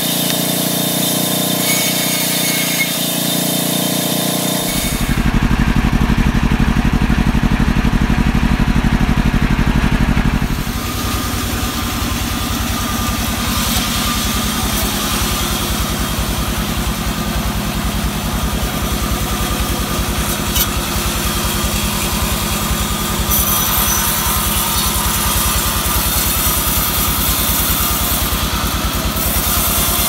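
Band sawmill running steadily with a loud engine-like drone as it cuts albasia wood. The sound shifts and grows louder about five seconds in, then settles back into a slightly different steady drone about eleven seconds in.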